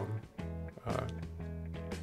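Background music: a few sustained notes struck over a steady bass line.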